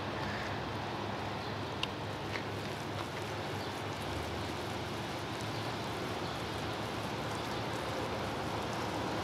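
Steady outdoor background noise: an even hiss with a faint low hum beneath it, and a couple of faint ticks about two seconds in.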